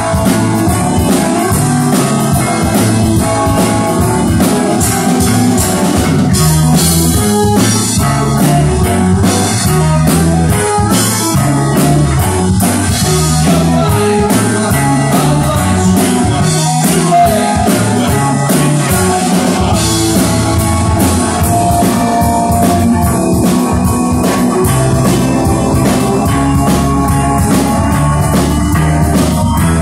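Rock band playing live: electric guitars, electric bass and drum kit in a loud, steady, driving groove.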